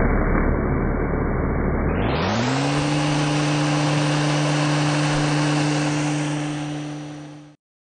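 1968 Wadkin overhead router cutting wood, a dense chip-cutting noise. About two seconds in, the cutter comes clear of the work and the spindle whine rises and settles at a steady pitch, then the sound fades out near the end.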